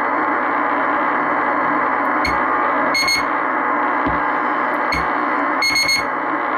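Kenwood TS-440S receiver hissing with steady band noise and static through its speaker, tuned to the 80-metre band. Short high beeps with faint clicks cut in four times, about two, three, five and six seconds in.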